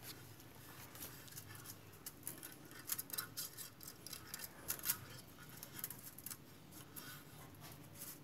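Faint, scattered small clicks and rustles of handling, loudest about three and five seconds in.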